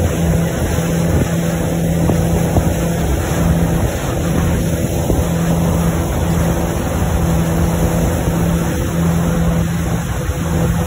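Towboat's inboard engine running steadily under way, mixed with the rush of the churning wake and wind buffeting the microphone.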